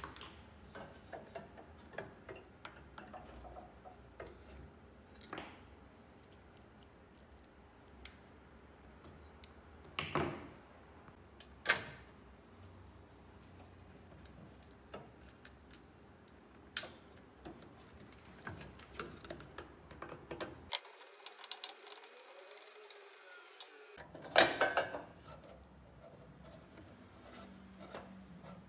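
Hands handling a laser tube's silicone water hoses and wire connectors: scattered small clicks, taps and rubbing, with a few louder knocks of hard plastic and metal parts, the loudest about three-quarters of the way through.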